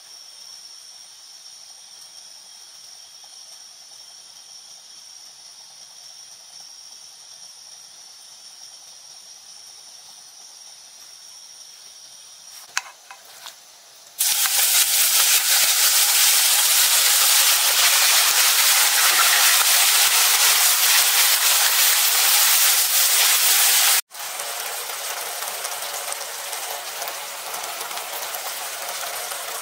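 Marinated beef slices tipped into hot oil in a nonstick pan set off a loud, steady sizzle about halfway through, after a stretch of faint hiss and a few light clicks. After an abrupt cut near the end, the beef goes on frying with a quieter sizzle.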